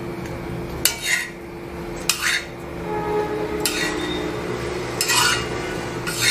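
Metal utensil clinking and scraping against a tawa as toasted bread slices are lifted off it: about five sharp clinks, one every second or so.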